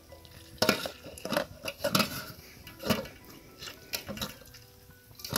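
A large metal basin clattering with a series of irregular knocks as tomatoes are handled and washed in it under water poured from a plastic jug.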